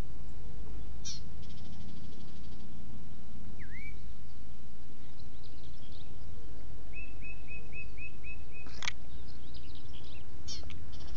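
Songbirds calling in the background: a single dipping chirp, then a quick run of about seven repeated notes, with sharp high sweeps about a second in and near the end, over a steady low rumble.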